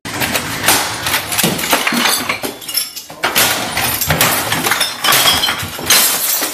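Dense clattering and clinking of hard objects, many sharp clicks in quick succession, cutting off abruptly at the end.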